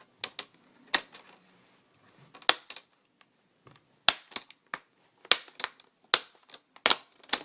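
Plastic clips of an HP G7 laptop's screen bezel snapping loose one after another as the bezel is pried off around the edge: a string of sharp, irregular clicks and snaps, some in quick pairs.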